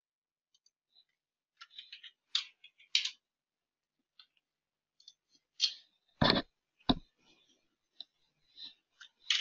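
Computer mouse clicking: scattered small clicks and ticks, with two louder clicks about six seconds in, a little over half a second apart.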